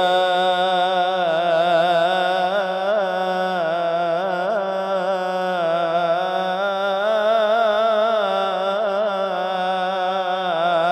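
A male munshid sings an Egyptian Islamic ibtihal (supplication chant) solo and unaccompanied. He holds one long drawn-out 'Yaa' through the whole stretch, ornamented with quick melismatic turns and wavers around the note.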